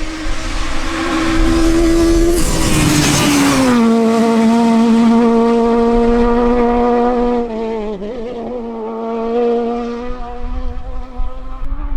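Peugeot 306 Maxi Kit-Car's high-revving four-cylinder engine at full throttle as the rally car passes close by: a rush of noise as it goes past, and the engine note drops in pitch as it pulls away. Near the middle there is a brief lift off the throttle, then it pulls hard again.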